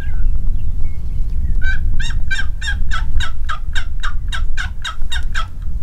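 Wild turkey yelping: a run of about fourteen quick yelps, three or four a second, beginning about a second and a half in, over a steady low rumble of wind on the microphone.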